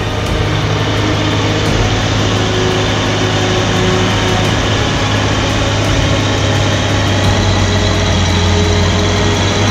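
Heavy diesel engine of a large farm machine running steadily under load, a constant low hum with a broad mechanical rush over it.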